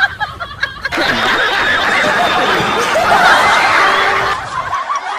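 Laughter from a group of people, many voices overlapping, dying down near the end.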